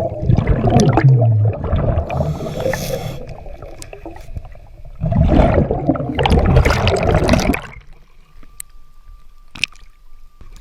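Scuba diver breathing through a regulator underwater: two long gurgles of exhaled bubbles, with a short hiss of an inhale between them, then much quieter about eight seconds in.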